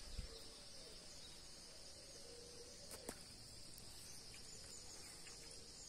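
Faint, steady, high-pitched chorus of insects, with a single small click about three seconds in.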